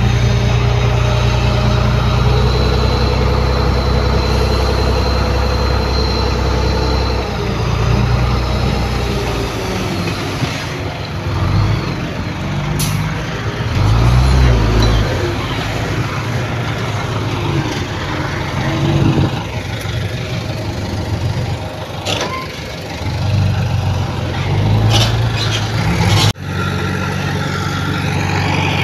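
Heavy diesel engines of earthmoving machinery, dump trucks and a bulldozer, running and working. A steady engine hum gives way after several seconds to an uneven stretch with a few sharp clanks, then the sound breaks off abruptly near the end into another steady engine hum.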